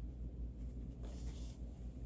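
Brief faint scraping about a second in, from cutters working the plastic wing of an AC plug, over a low steady hum.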